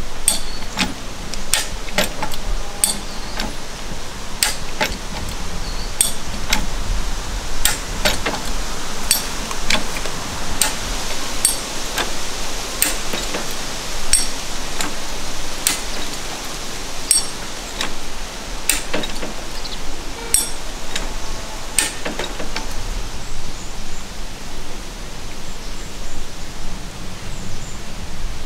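Steel high-lift farm jack (Forest Master FMFJ) being pumped by its handle under load. Its climbing mechanism clicks sharply along the perforated bar, about one or two clicks a second, sometimes in quick pairs.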